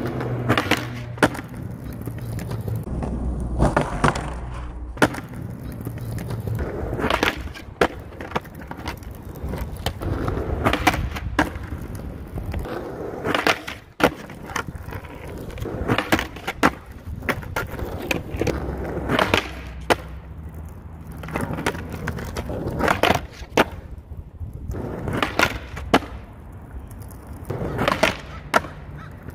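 Skateboard wheels rolling over rough asphalt, with repeated sharp clacks of the board popping, hitting a concrete ledge and landing. Between them the board scrapes along the ledge, over several attempts at a nose trick.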